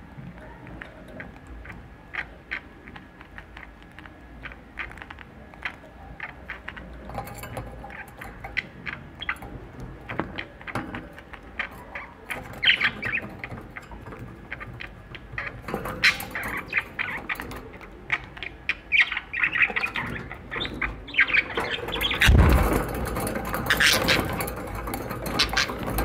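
Budgerigar chirping and squawking in short calls among many small clicks and taps. The calls get louder and busier near the end.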